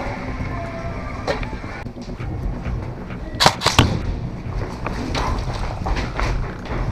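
Low rumbling movement and handling noise on a helmet-mounted action camera as the player moves. About three and a half seconds in come two sharp cracks, a third of a second apart, and a few lighter clicks are scattered around them.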